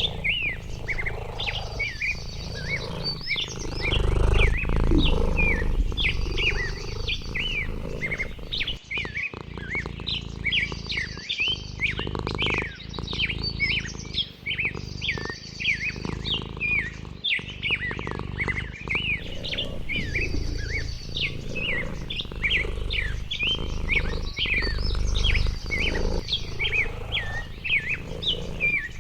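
Many small birds chirping busily, with short calls repeating throughout and a trill recurring every couple of seconds, over a low rumble that swells twice.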